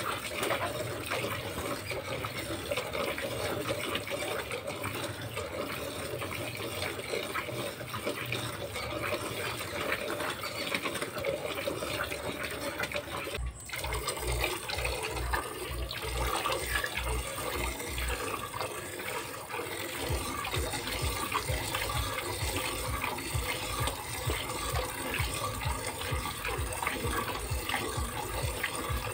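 Milk squirting from a cow's teats into a partly filled plastic bucket during hand milking: a steady hiss and splash of milk streams. The sound breaks off briefly about halfway through.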